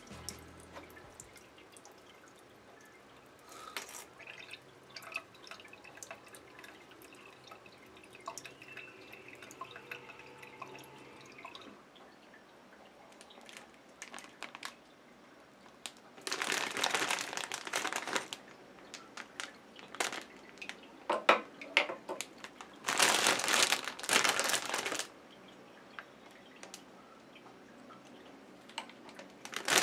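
Plastic bag around a new handheld bidet sprayer crinkling loudly in two stretches of a few seconds each as it is handled and opened, with scattered clicks and knocks from handling in between.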